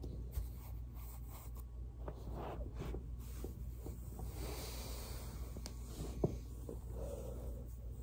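Light rubbing and scuffing of a ridged foam roller and clothing against carpet as a body shifts on the roller, over a steady low hum. A single sharp click about six seconds in.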